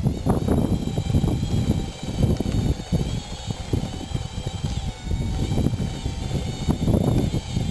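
Wind buffeting the microphone in uneven gusts, over a faint steady whine from the electric drive of a radio-controlled bulldozer working a dirt pile.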